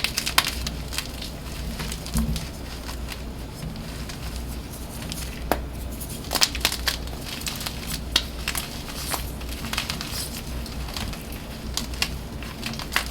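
Dyed blocks of BSN gym chalk being crushed and crumbled, giving irregular crackling crunches and sharp snaps.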